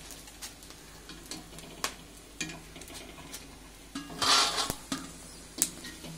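Gond pieces frying in ghee in a heavy-bottomed kadhai with a faint sizzle, while a spoon clinks sharply against the pan a few times as the puffed gond is lifted out. A louder burst of noise comes about four seconds in.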